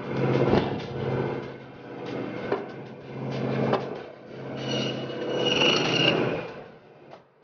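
Meat band saw running with a steady hum while its blade cuts through a lamb carcass. The sound swells three times as the blade passes through bone and meat, with sharp ticks, and a high ringing whine joins the last cut.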